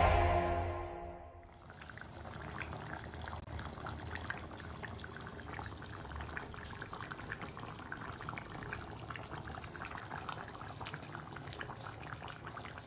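Background music fading out in the first second or so. Then thick beef and raw banana curry bubbling as it simmers in a clay pot, with a soft, steady run of many small pops.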